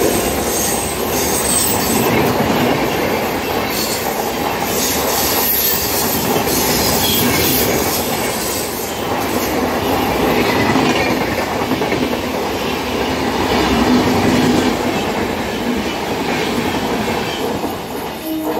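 Passing coaches of the Howrah–Bikaner Superfast Express going by at speed: a steady, loud noise of wheels running on the rails.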